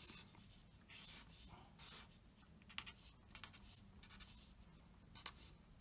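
Pen scratching on paper on a clipboard, drawing lines and small arrowheads: faint, a series of short strokes.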